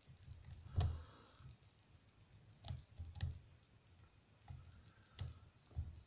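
Steel lock pick and tension wrench clicking and scraping against the pins inside a brass challenge lock cylinder during single-pin picking: about half a dozen sharp ticks at uneven intervals, with faint scratching between them.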